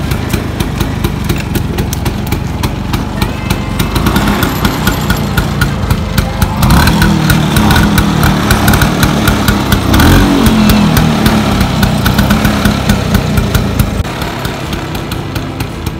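Classic Vespa Super 150's two-stroke single-cylinder engine running on choke just after starting, revved up from about six to eleven seconds in, then dropping back to a lower idle near the end.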